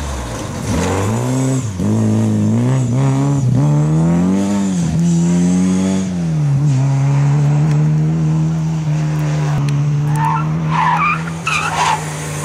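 Rally car engine revving hard through the gears on a loose, dusty stage, the pitch climbing and dropping several times with each shift, then settling into a steady drone for the last several seconds.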